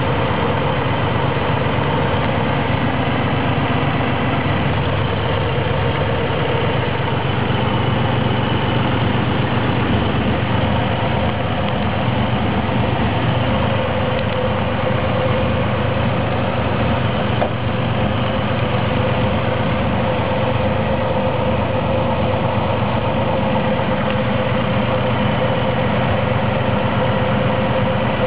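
Chevrolet Corvair's air-cooled flat-six engine idling steadily.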